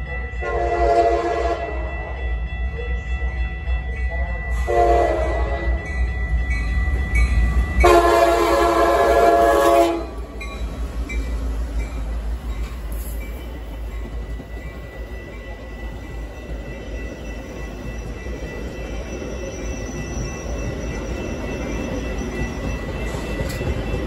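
Horn of an EMD F59PH diesel locomotive sounding three blasts, the last the longest, as the train comes through the crossing. Then the locomotives and bilevel passenger cars pass with a steady low rumble of engines and wheels on rail.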